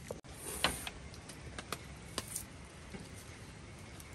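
Scattered light clicks and knocks of a knife cutting food held in the hand, with no cutting board, irregularly spaced over a faint steady hiss.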